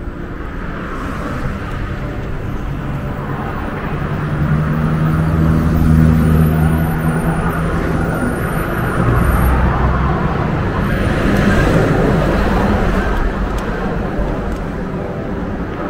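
Road traffic: motor vehicles passing on the road over a steady low rumble, the engine sound swelling about a third of the way in and again past the middle.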